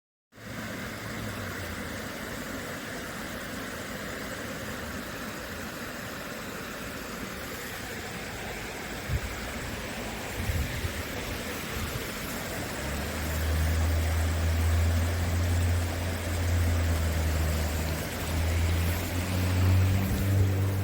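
River water flowing steadily over a shallow bed. About two-thirds of the way in, a deep low rumble joins and grows louder, with a couple of faint knocks shortly before it.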